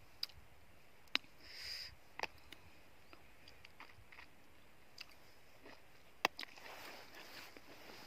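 Faint chewing of fresh cherries, with a few sharp, isolated clicks of a metal spoon against a plastic tub.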